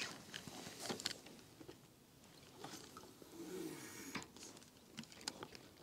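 Faint, scattered small clicks and rustles of fishing tackle being handled close by.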